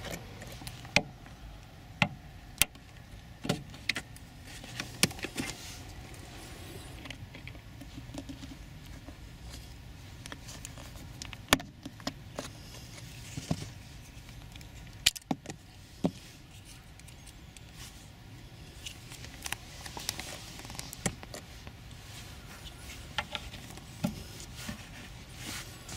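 Irregular sharp clicks and snaps of hard plastic as a car's rear seat bench retaining clip is handled and worked with pliers, with quieter handling noise between them.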